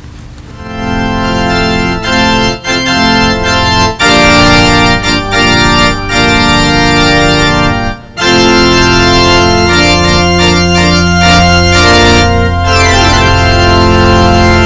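Organ playing a slow run of held chords that swell in under a second in, with a brief break about eight seconds in before the chords resume.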